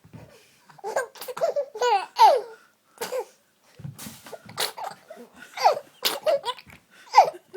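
Baby laughing in a string of short, gleeful bursts.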